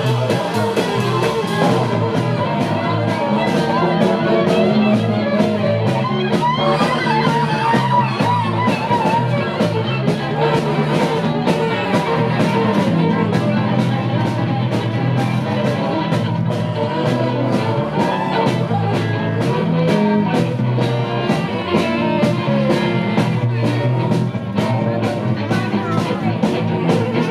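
Rock band playing live: baritone saxophone, fiddle, bass guitar and drum kit with cymbals, over a steady fast drum beat.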